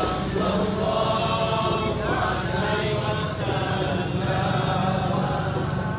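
Many voices chanting together in unison, a devotional group chant with long held notes over a steady low background hum.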